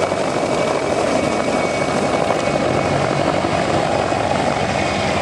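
Mil Mi-1-type piston-engined helicopter flying a low pass overhead, its engine and rotors giving a loud, steady, even drone.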